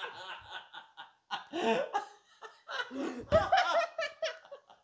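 A teenage boy laughing hard in several breathy fits, loudest about three seconds in.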